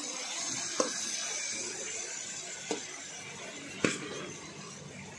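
Beef tripe and offal sizzling in sauce in a pan while a metal spoon stirs them, with a steady hiss and three sharp knocks of the spoon against the pan, the last one the loudest.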